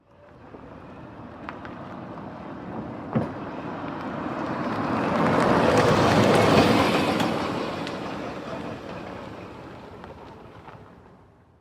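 Golf cart driving past: a rushing vehicle noise that swells to its loudest about six seconds in and then fades away, with two light knocks in the first few seconds.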